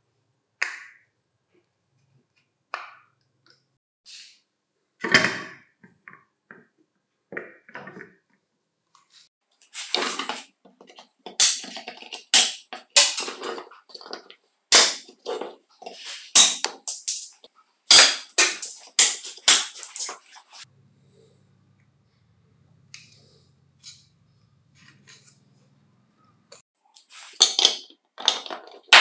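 Sharp clicks and snaps of hard plastic: side cutters working on the sharpener's plastic housing, in a dense run of snips through the middle. A faint low hum comes partway through, and near the end there is a clatter of cylindrical battery cells being set into the plastic case.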